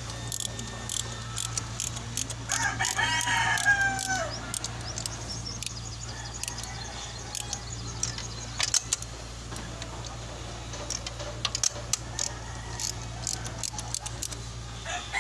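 A rooster crows once, about two and a half seconds in, over scattered metallic clicks and clinks of hand tools and a steady low hum.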